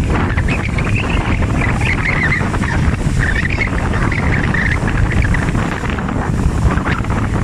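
Strong wind buffeting the microphone as a constant low rumble aboard a small boat at sea, with a faint wavering higher sound through the first few seconds.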